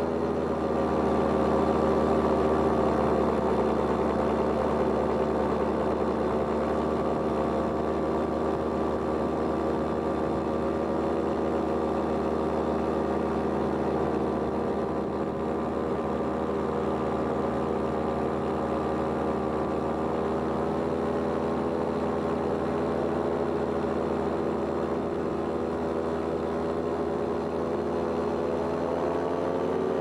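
Powered paraglider (paramotor) engine and propeller running at a steady drone, heard up close in flight.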